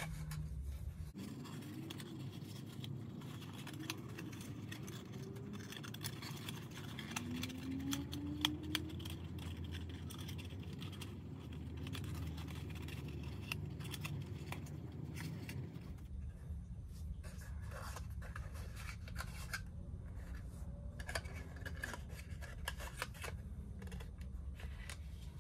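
Light scrapes, rubs and scattered small clicks of hand work on a small model, with a faint low hum behind.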